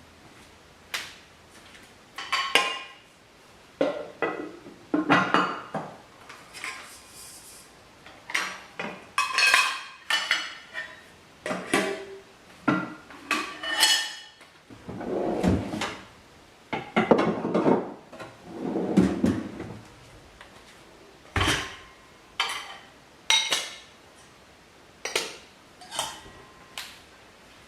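Dishes and cutlery being handled, clinking and clattering in a string of separate knocks, several with a short ring, and some duller handling noises in between.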